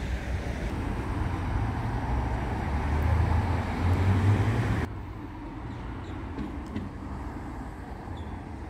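Flexity low-floor tram running close by at low speed, a low hum and rumble that grows louder, then cuts off abruptly about five seconds in. What follows is quieter street traffic noise.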